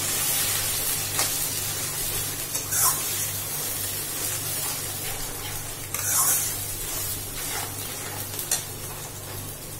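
Onion-tomato masala sizzling in hot oil in a metal kadai while a metal spatula stirs and scrapes through it, with a few sharper scrapes against the pan.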